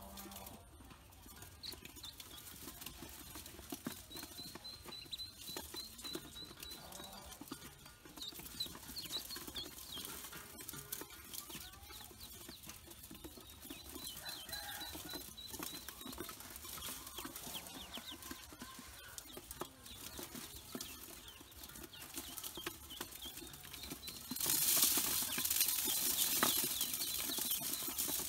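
Ducklings peeping in a steady run of short, high chirps, with small clicks as they peck at feed in an aluminium bowl. Near the end a loud rush of grain showers into the metal bowl over the peeping.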